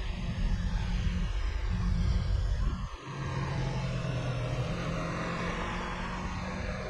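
Yamaha YZF-R3's 321cc parallel-twin engine running under way, with wind rushing past. The engine note dips briefly about a second in, cuts out sharply about three seconds in and resumes, and cuts again at the very end.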